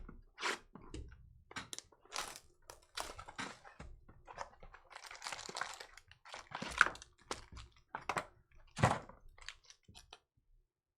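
Trading cards being handled and flipped through by hand: irregular light clicks, slaps and rustles of cardboard and plastic, with a longer rustle about halfway through and two sharper snaps near the end.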